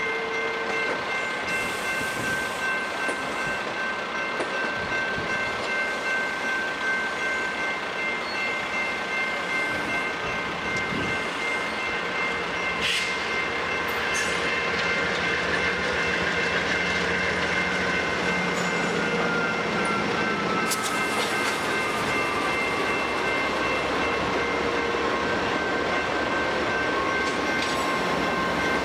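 Amtrak passenger train rolling slowly past, its cars running by with a steady rumble and several steady high ringing tones above it; in the second half one tone slides slowly down in pitch, and there is a single sharp click about halfway through.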